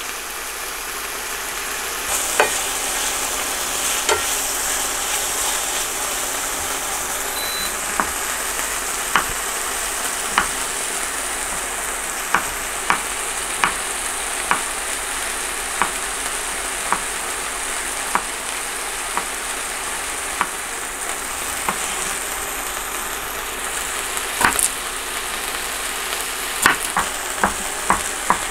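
Chicken pieces frying in olive oil in a pan, a steady sizzle, with the sharp knock of a knife on a wooden cutting board as garlic cloves are sliced. The knocks come now and then at first, then about once a second, and faster near the end.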